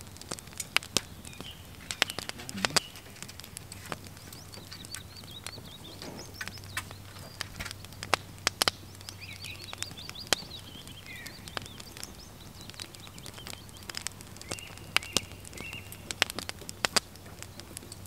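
Campfire of partly damp firewood crackling with irregular sharp snaps and pops. Birds call faintly in the background.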